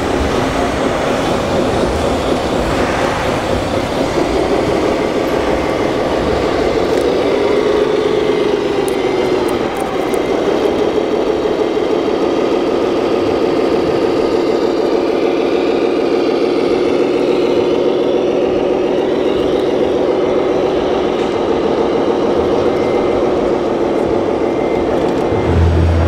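Radio-controlled scale model trucks driving, giving a steady motor and engine hum whose pitch rises and falls slightly, with a brief break about ten seconds in before it carries on.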